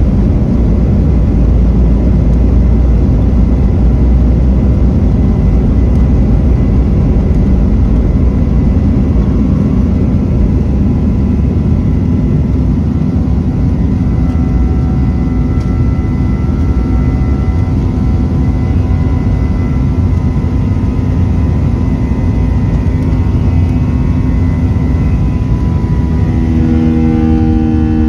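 Boeing 737-900's wing-mounted CFM56-7B turbofan at full takeoff thrust, heard from inside the cabin over the wing: a loud, steady engine roar with a heavy rumble during the takeoff roll, continuing after liftoff into the climb. Steady whining tones build through the climb, and near the end the pitch eases down as a loud droning buzz of steady tones takes over, as the engine comes back from maximum power.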